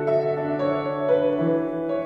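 Piano-style keyboard playing slow, held chords, the notes changing every second or so, in an instrumental passage of a song.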